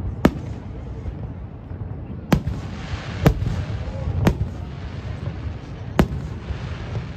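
Aerial fireworks shells bursting overhead: five sharp bangs spread unevenly over several seconds over a steady low rumble, with crackling in the middle of the run.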